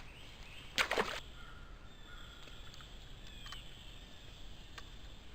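A short splash of water about a second in, then birds calling faintly.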